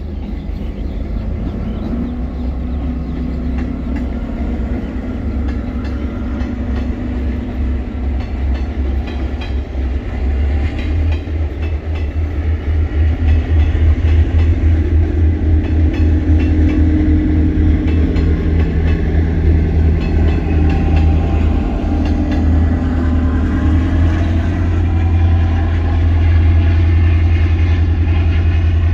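Diesel-electric multiple unit (DEMU) train running past: a steady low rumble with the hum of the diesel power car and wheels clacking over rail joints, getting louder from about halfway through.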